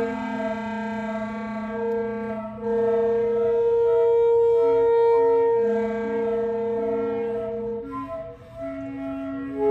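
Several wind instruments holding long notes at once, overlapping, with single voices dropping out and re-entering on new pitches one at a time, and a brief thinning of the sound about eight seconds in.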